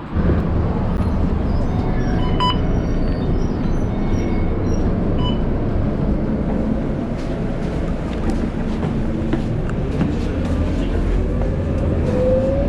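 Steady low rumble of a vehicle in motion, heard from on board, with light rattles and a rising whine near the end.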